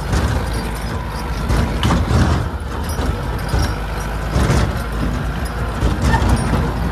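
T-40AM tractor's air-cooled diesel engine running hard under load as the tractor climbs a grassy slope, black smoke pouring from its exhaust.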